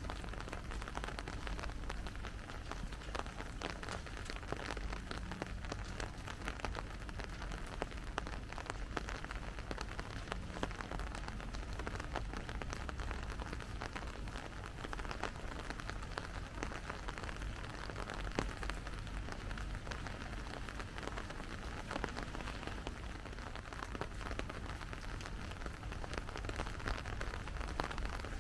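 Steady rain falling, a constant hiss flecked with many small drop ticks, over a low rumble.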